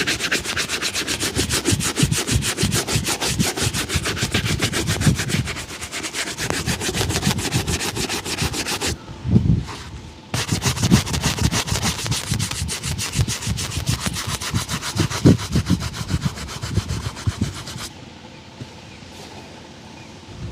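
Rapid, even back-and-forth rubbing strokes buffing a shoe during a shoe shine. The strokes stop for about a second near nine seconds in and ease off near the end.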